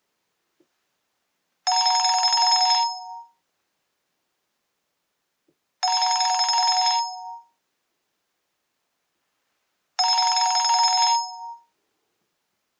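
Nokia E63 ringtone playing a ring pattern: three identical ring bursts about four seconds apart, each a little over a second long and ending in a short fade.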